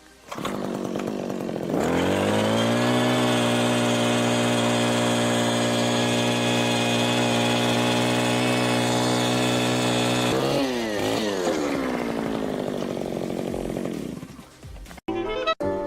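Small 33cc two-stroke engine of a power ice auger revving up to full throttle, held steady for about eight seconds, then the throttle is let off and the revs fall away. Clicks come in near the end.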